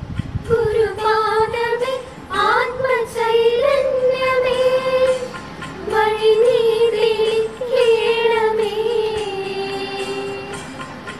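A group of girls singing a song together in unison, holding long notes, with brief breaks between phrases.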